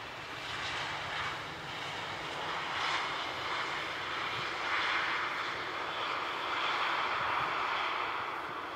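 Jet engines of an Airbus A320-family airliner running as it rolls along the runway, a steady roar that swells as the aircraft passes by.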